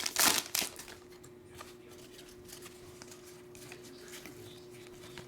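Trading-card pack wrapper crinkling loudly for a moment at the start, then cards being handled quietly, with a few faint ticks and slides.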